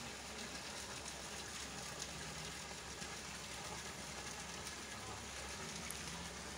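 Hot-spring water pouring from pipe spouts and splashing steadily into a bathing pool.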